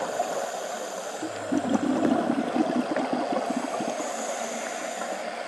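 Underwater ambience picked up by a camera in its housing: a steady hiss with fine crackle. A louder bubbling gurgle comes in about a second in and lasts about two seconds.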